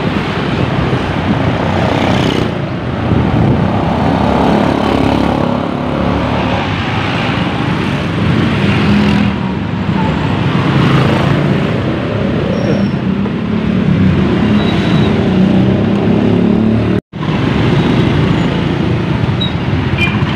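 Motorbike riding through busy street traffic: the bike's engine and road noise with a rushing, wind-like hiss, among other motorcycles and a truck. The sound cuts out for an instant about three-quarters of the way through.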